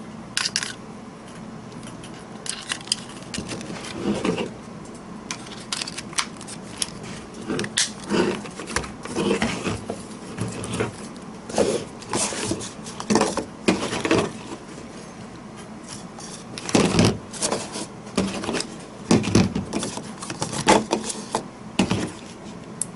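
Batteries being fitted into a rechargeable LED zoom headlamp's plastic battery box, then the headlamp being handled: a run of irregular small plastic clicks, clacks and rattles.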